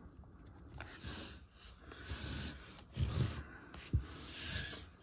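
Faint handling noises of a plastic compact camera: fingers rubbing on it and two soft low thumps about three and four seconds in, as the hands let go of the camera on the table.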